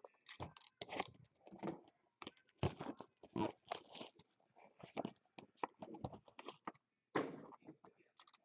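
Plastic shrink wrap being torn and crumpled off a trading-card box by hand: irregular crinkling and crackling.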